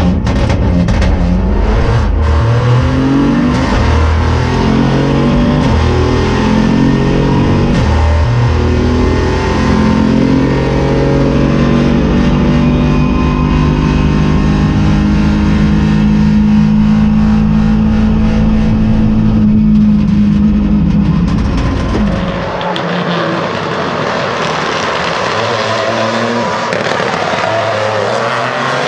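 Peugeot 208 Rally4's turbocharged 1.2-litre three-cylinder engine heard loud from inside the cabin, its pitch climbing and dropping back several times as it shifts up, then held high and steady for several seconds. Near the end the deep cabin sound cuts off and the car is heard from trackside, brighter and with less bass.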